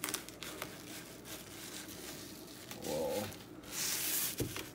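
Fillet knife scraping along the skin of a black sea bass fillet against a cutting board as the fillet is skinned, with small clicks of the blade on the board and a louder scrape near the end.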